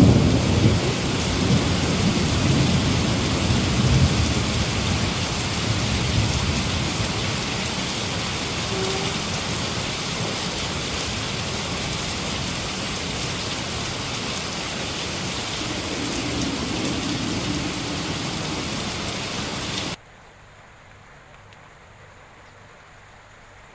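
Heavy rain pouring steadily, with a low thunder rumble dying away over the first few seconds. About twenty seconds in, the sound cuts abruptly to much quieter, lighter rain.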